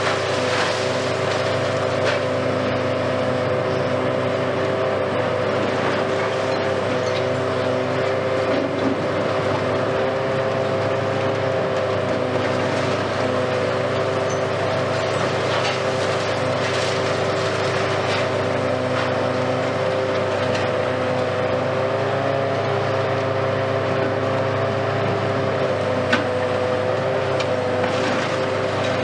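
Hitachi Kiesel KMC520 high-reach demolition excavator running steadily under work: an even engine-and-hydraulics drone with several held tones, and a few faint knocks of breaking concrete as its attachment works the building.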